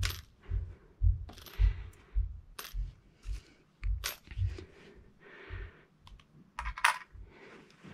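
Coins being set down one after another on a straw-and-cardboard bridge: a scattered series of sharp metallic clicks and soft knocks, with hand-handling rustle between them.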